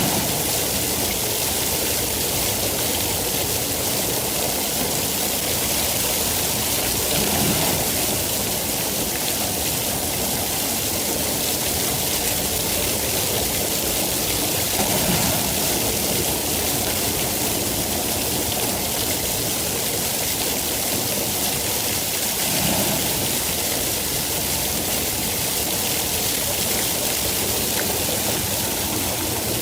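Steady heavy rain, an even hiss, with a brief low swell about every seven or eight seconds.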